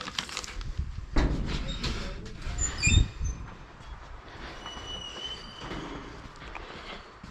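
Metal-on-metal workshop noises from suspension work: a few loud knocks with short squeaks and scraping in between, and a thin squeal about five seconds in.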